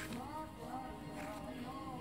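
Rap song playing: the beat with a gliding melodic line and no rapped words.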